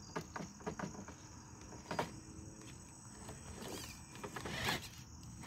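Traxxas TRX-4 RC crawler's small electric motor and geared drivetrain whirring faintly as it creeps over a concrete slab, with scattered clicks and scrapes of tyres and chassis on the rough concrete. Crickets chirp steadily behind it.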